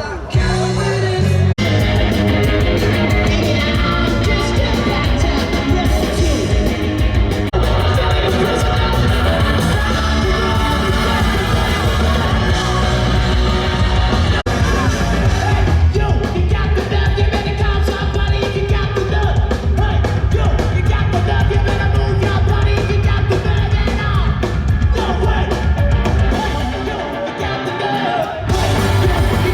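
Loud live rock band: distorted electric guitars, bass and drums driving a fast punk-rock song with shouted lead vocals, heard through the open-air PA. The bass drops out briefly near the end before the full band crashes back in.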